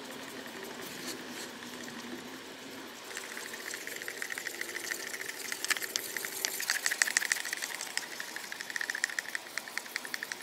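Wooden stir stick scraping round the inside of a plastic mixing cup in rapid strokes while two-part epoxy resin is mixed. The stirring starts about three seconds in.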